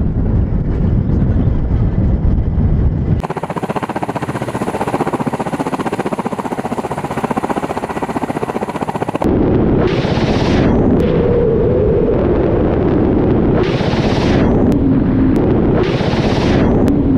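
Ka-52 attack helicopter's twin turboshaft engines and coaxial rotors running, with a fast pulsing beat from about three to nine seconds in. In the last seven seconds, three unguided rockets fired from its underwing rocket pods, each launch a hiss lasting about a second, the loudest sounds here.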